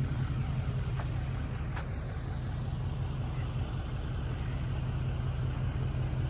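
1998 Freightliner FLD120's Cummins N14 diesel idling with a steady, low pulsing rumble. A couple of light clicks come about a second in.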